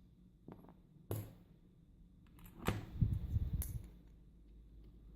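Small metallic clicks and knocks from an ASSA euro cylinder and its key being handled: a sharp click just after a second in, more clicks a little later, and a short run of soft knocks about three seconds in.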